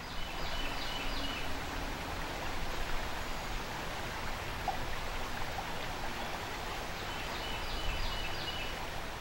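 Fast river current rushing, a steady wash of moving water, with a few faint high chirps about half a second in and again near the end.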